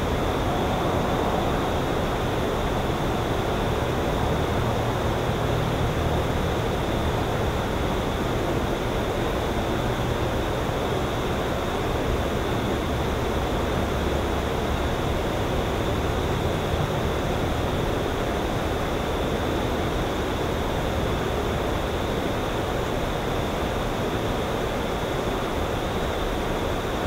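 Lakeside outdoor ambience: a steady, even hiss with a low rumble that swells through the middle and then eases, with no distinct events.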